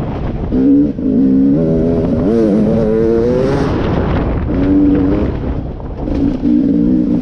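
Beta RR 300 two-stroke enduro engine, heard from the bike while riding, revving up and down on the throttle. The pitch climbs and falls in the middle, with brief drops about a second in and around six seconds in.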